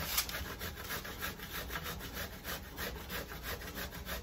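A zucchini being grated by hand on a stainless steel box grater, in a quick, even run of scraping strokes.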